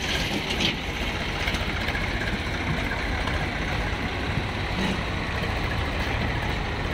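Swaraj tractor's diesel engine running steadily.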